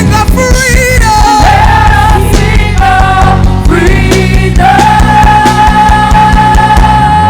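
Live worship band playing with a singer over drums and bass; a long note is held through the second half.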